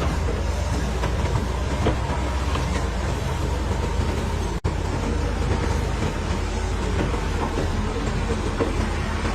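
Caterpillar crawler bulldozer working: a steady diesel engine runs under load while the steel tracks clank and rattle. The sound drops out for an instant about halfway through.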